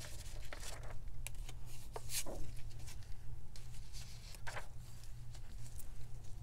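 Paper and stencils being handled and set in place on a work surface: scattered light rustles and small taps over a steady low hum.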